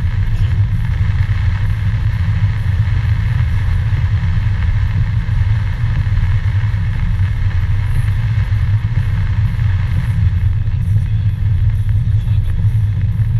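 Steady low drone of a car driving on a wet road in heavy rain, heard from inside the cabin, with an even hiss of tyres on water and rain over it.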